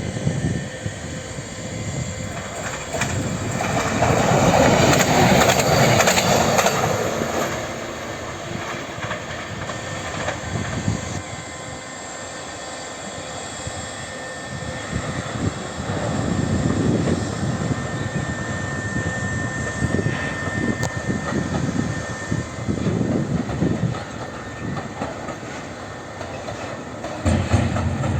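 Train passing on the railway line, loudest about five seconds in, then running on with an uneven rumble.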